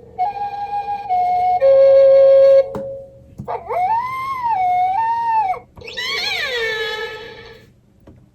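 Electronic talking book's small speaker playing a short flute-like jingle of stepped notes, then recorded animal calls: a rising, wavering howl and then a call that falls in pitch.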